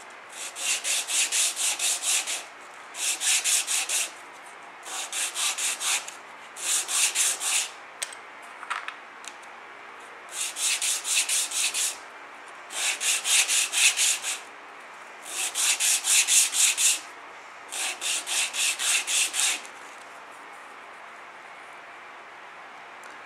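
Small wooden inlay pieces rubbed by hand on a flat sandpaper board in quick back-and-forth strokes, about four a second. There are eight short bouts of scraping with pauses between them, and the strokes stop near the end.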